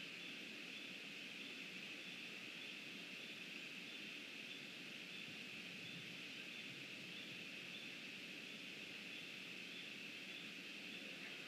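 Steady, even background hiss with a constant high-pitched band running through it, and no distinct events.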